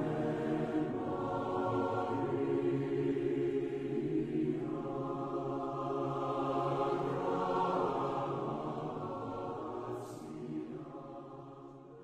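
Slow intro music of long held chords with choir-like voices, fading out over the last few seconds, with a brief high swish about ten seconds in.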